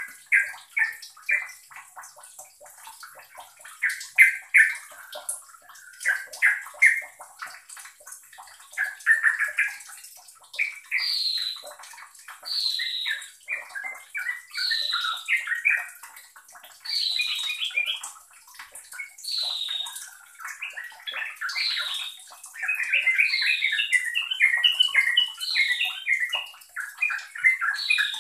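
Yellow-vented bulbul (trucukan) singing bubbly phrases of quick chattering notes, about one phrase every two seconds. From about a third of the way in, each phrase opens with a high falling note. Near the end the phrases run together into a long, rapid chatter.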